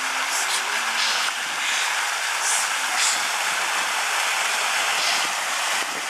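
A large fountain's water jets falling back into the basin, with water pouring over the basin rim: a steady hiss of splashing water.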